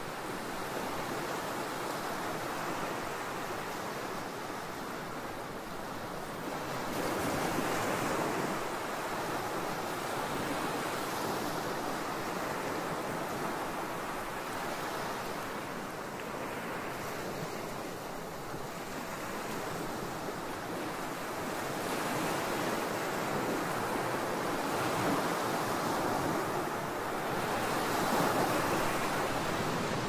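Sea waves washing onto a shore: a continuous rush of surf that swells louder and fades again several times.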